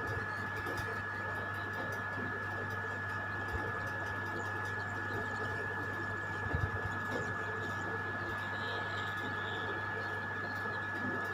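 Steady electrical hum with a constant high-pitched whine, and a few faint soft knocks about six and a half seconds in.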